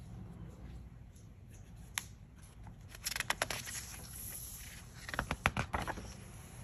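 Pages of a large printed book being turned by hand: paper rustling and crackling in two bursts, about three and five seconds in, after a single light tap.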